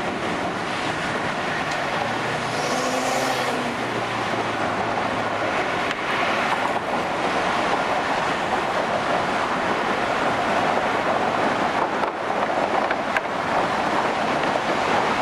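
Steady road traffic, cars driving along the roadway below, a continuous rushing noise with a low engine hum about two to five seconds in.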